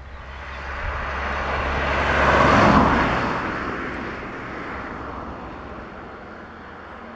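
A road vehicle passing close by: tyre and engine noise swells to a peak a little under three seconds in, then fades away.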